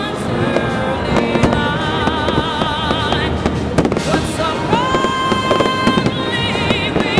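Aerial fireworks exploding in a dense, rapid series of bangs and crackles, with music playing alongside.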